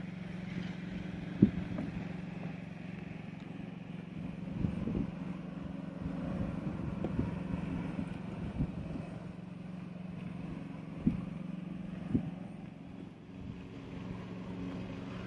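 A machine running with a steady low hum, with a few short knocks scattered through.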